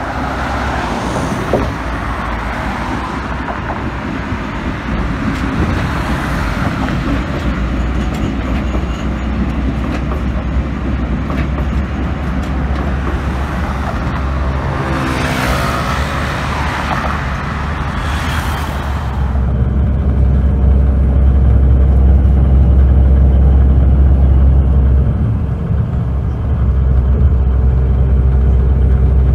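City street traffic on a bridge: a city bus and cars going by, with a louder vehicle passing about halfway through, its pitch falling as it goes. About two-thirds of the way in the sound cuts to a steady, deeper, muffled rumble of a moving vehicle.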